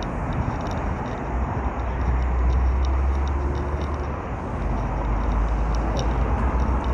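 Road traffic passing close by: cars driving along the road, a low rumble that swells about two seconds in and again about five seconds in.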